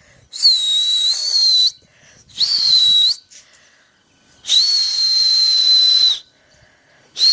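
A person whistling loudly to drive pigeons up into the air: three long, breathy, steady-pitched high whistles with short pauses between them, and a fourth starting right at the end.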